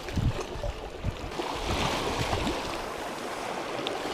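Small sea waves washing and lapping against shoreline rocks, with wind buffeting the microphone in low thuds during the first half.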